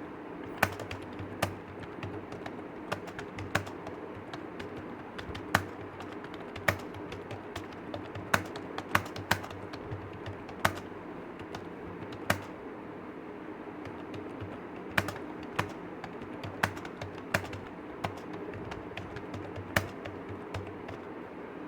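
Typing on a computer keyboard: a steady stream of quick keystrokes, with sharper, louder key clicks landing irregularly about once or twice a second, over a steady low hum.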